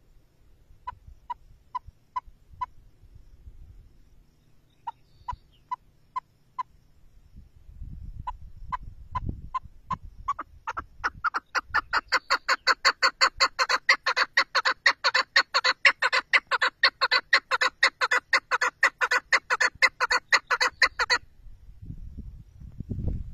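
Chukar partridge calling: two short runs of five clucks, then a series that quickens and swells into a loud, rapid rally of about four or five calls a second, which stops abruptly near the end. Low rumbles are heard now and then.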